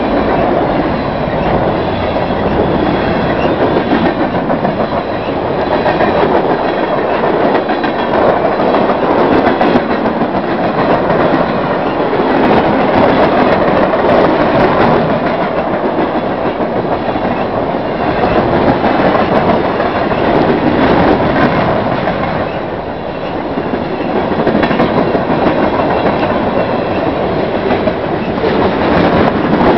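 Mixed freight train rolling past, a steady loud rumble and rattle of the cars with repeated wheel clicks over the rail joints.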